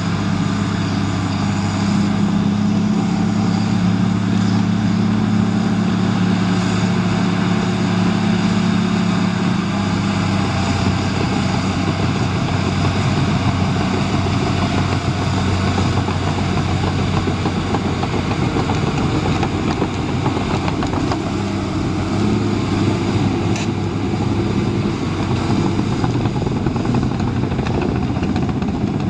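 Caterpillar D5N LGP crawler dozer's diesel engine running steadily while the dozer works, pushing soil. The steady engine note gives way to a rougher, noisier sound about ten seconds in.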